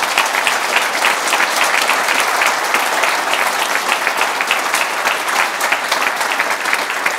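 Audience applauding: dense, steady clapping from a conference crowd at the end of a talk.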